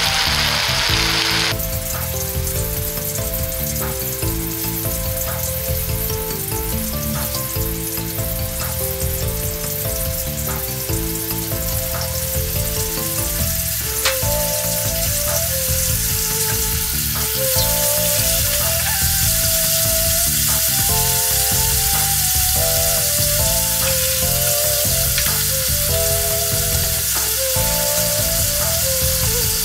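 Tofu deep-frying in hot oil in a wok, a steady sizzle throughout. A background music melody plays over it.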